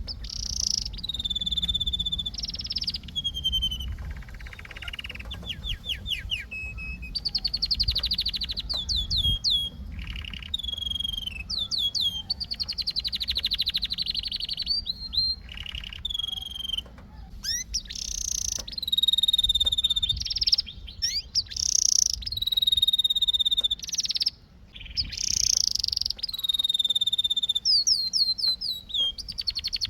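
Domestic canary singing: phrase after phrase of rapid trills and rolls alternating with held whistled notes that drop in pitch at the end, with brief pauses between phrases.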